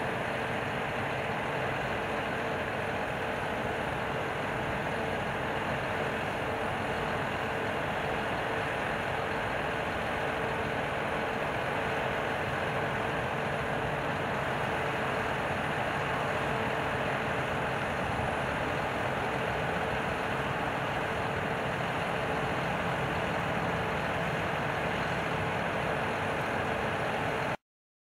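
Tracked Claas Lexion 760 combine harvester running steadily while harvesting wheat, its engine and threshing machinery giving an even drone with a steady tone through it. The sound cuts off suddenly near the end.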